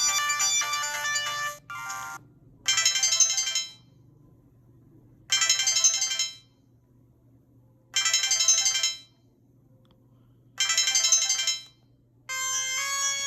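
Built-in ringtones of a Samsung GT-E1175T mobile phone. A melodic ringtone ends about a second and a half in, then a short ring pattern sounds four times at even intervals with pauses between, and a different melodic ringtone starts near the end.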